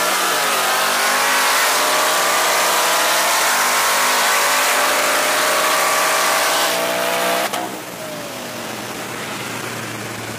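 Car engines running at a steady pitch that drifts slightly down, mixed with strong road and wind noise. The sound cuts off abruptly about seven and a half seconds in and gives way to quieter noise.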